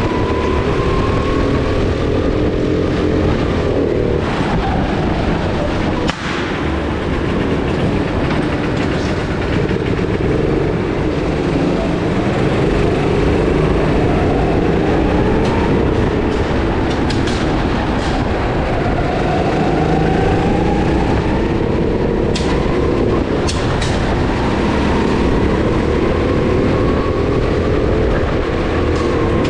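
Racing go-kart's motor heard from onboard at speed, its pitch repeatedly rising and falling, with a few sharp knocks along the way.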